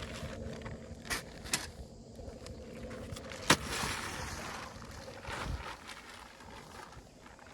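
A few sharp knocks, the loudest about three and a half seconds in, followed by a brief rustling hiss, over a faint outdoor background.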